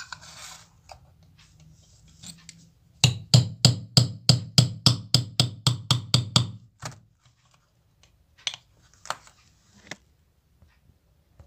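Pliers hammering a needle into the lid of a small steel tin, a fast even run of about twenty sharp ringing knocks, about five a second, starting about three seconds in, then a few lighter taps. The needle is failing to pierce the lid.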